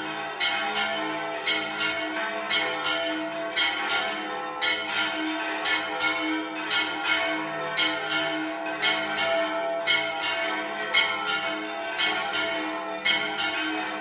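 Several church bells ring together in a fast, steady peal, about two strikes a second. The hum of the bells carries on beneath the strikes.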